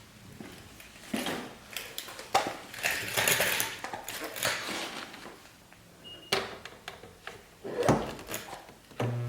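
Irregular clicks, knocks and light clattering of a stud-welder dent-pulling kit's metal parts and case being handled.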